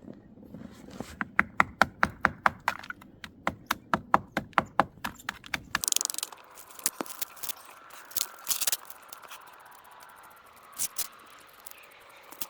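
Footsteps crunching on packed snow and ice, about four a second, stopping suddenly about six seconds in; then a few scattered scrapes, clicks and short rustles.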